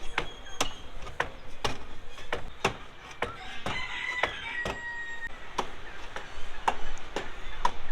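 A rooster crowing once, starting about three and a half seconds in and ending on a held high note, against a run of sharp knocks or clicks about every half second.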